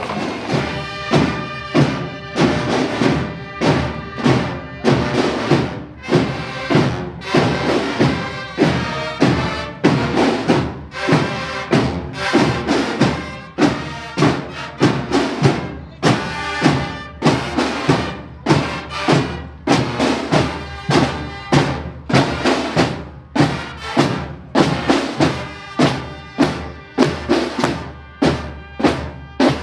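A drum-and-brass fanfare band playing Holy Week music, with a strong, even drum beat about once a second under the sustained notes of the horns.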